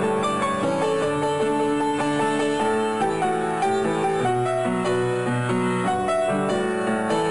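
Piano music, a continuous run of notes and chords.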